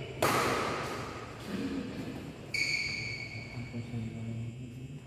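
Badminton play in a sports hall: a sharp, echoing hit about a quarter-second in, then a steady high-pitched squeal from about halfway through until near the end, over a low hum and distant voices.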